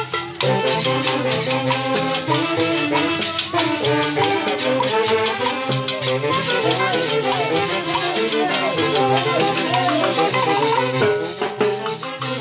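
Live band music: a saxophone section plays the melody over timbales and a metal shaker keeping a steady rhythm, with some sliding notes in the middle.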